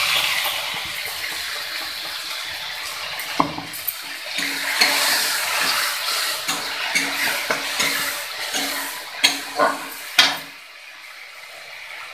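Spiced tomato masala paste sizzling in hot oil with onions in a metal kadai, the sizzle loudest at the start and easing off, while a metal spatula stirs and scrapes it. There are several sharp knocks of the spatula against the pan, one about three seconds in and three close together near the end.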